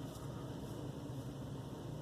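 Soft, steady swishing of a shaving brush working wet soap into a lather.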